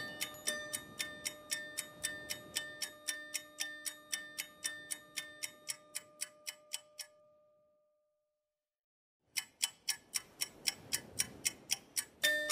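Background music track with a steady clock-like ticking, about three to four ticks a second, over held chords that fade out about seven seconds in. After a second or so of dead silence the ticking starts again, and the chords come back near the end.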